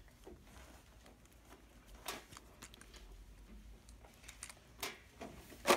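Quiet room with a few faint, short clicks and taps of a small plastic toy being handled, a handful of them near the end.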